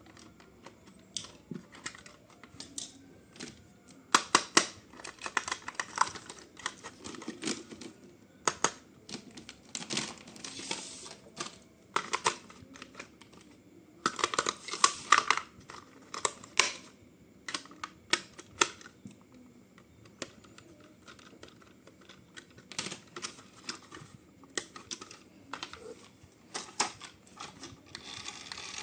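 Hands handling a remote-control toy car and its packaging: irregular clicks and taps with short bursts of rustling.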